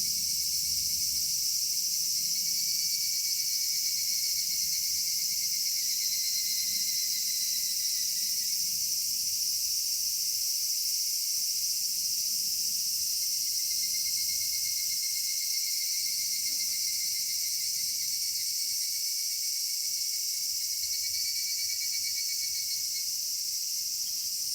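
Summer cicadas chorusing: a steady high-pitched drone, with repeated pulsing calls of two or three seconds each that fall slightly in pitch.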